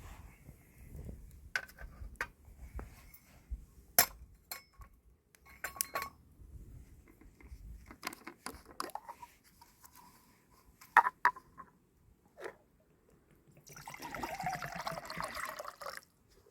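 Sharp clinks and knocks of camp cookware being handled, then about two seconds of water pouring near the end as a pot is filled for boiling.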